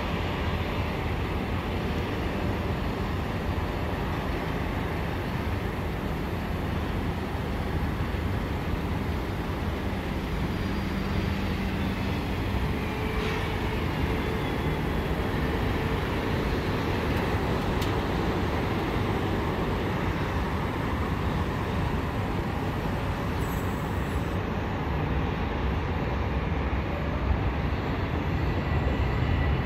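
Distant jet engine noise across an airfield: a steady rumble that grows louder near the end as the Airbus A330-941's Rolls-Royce Trent 7000 engines power up for the takeoff roll.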